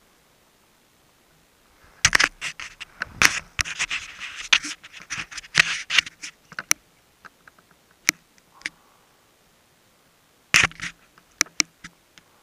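Fingers handling a helmet-mounted action camera right at its microphone: scratching, rubbing and sharp clicks in a dense run from about two seconds in to about seven, then a shorter cluster near the end.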